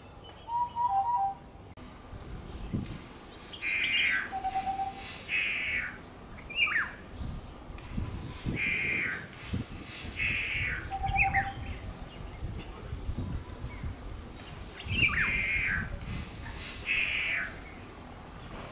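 A wild bird giving harsh calls in pairs, three pairs spaced a few seconds apart, with a few short whistled notes between them.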